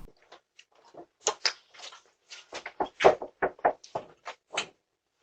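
Irregular clicks and knocks of a door being handled, about a dozen short sharp sounds over a few seconds, heard through a doorbell camera's microphone.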